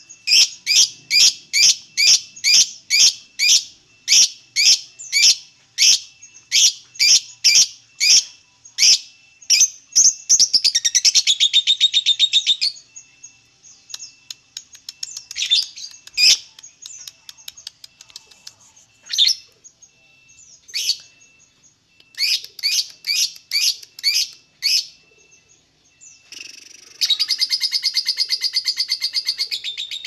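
Fischer's lovebird calling: sharp, high chirps about two a second, a short rapid chattering trill about eleven seconds in, then scattered chirps. Near the end it breaks into a long, fast, continuous chattering trill, the lovebird's 'ngekek' song.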